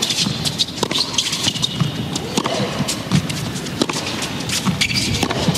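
Arena crowd applauding and cheering after a point in a tennis match: dense clapping with scattered shouts from the stands.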